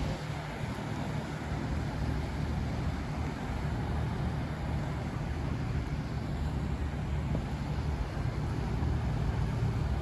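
Steady low engine drone with a noisy wash over it.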